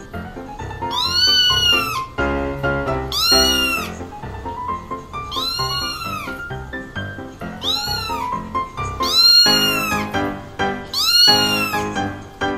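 Young kittens mewing repeatedly: high, thin calls that rise and fall in pitch, one every two to three seconds, over background music.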